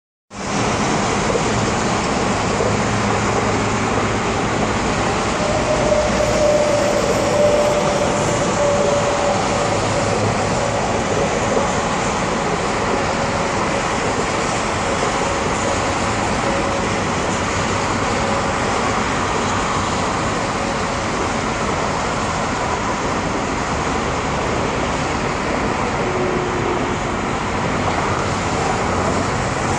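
Steady wash of traffic noise from a busy multi-lane expressway, with a faint whining tone drifting slightly lower from about six to eighteen seconds in.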